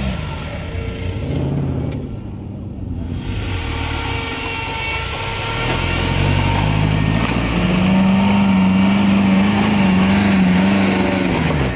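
Engine of a caged off-road buggy revving as it drives up a steep dirt bank. The revs rise in steps, are held high for a few seconds, then drop sharply near the end.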